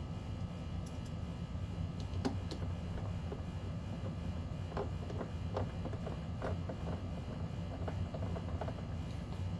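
A steady low hum with a scattering of light clicks and taps from handling the plastic HVAC housing parts, starting about two seconds in.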